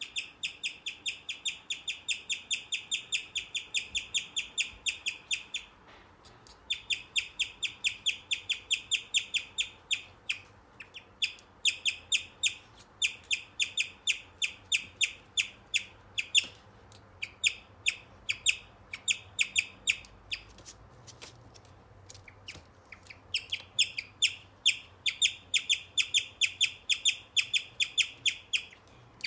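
Male guinea pig chirping: a rapid, bird-like string of high chirps, about five a second, in long runs broken by short pauses and a quieter lull about two-thirds of the way through.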